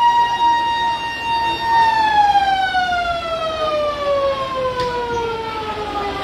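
Fire truck siren holding one steady wail, then about two seconds in starting to wind down, its pitch falling slowly and smoothly to the end.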